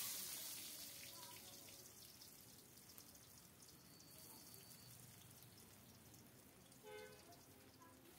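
Chopped garlic dropped into hot mustard oil in a wok, a sudden loud sizzle that dies down slowly to a steady crackling fry.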